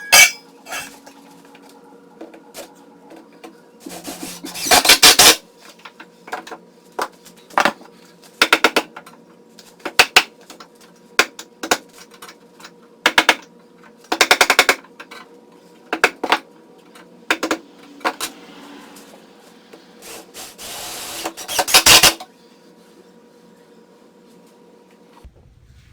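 Woodworking tool work on wood: a string of sharp single knocks and short bursts of rapid rattling strikes, the longest about 20 seconds in, over a faint steady hum.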